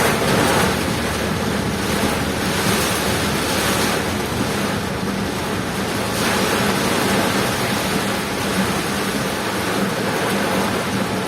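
Heavy rain and strong wind heard from a moving vehicle: a steady, loud rushing hiss, with a faint steady low hum underneath.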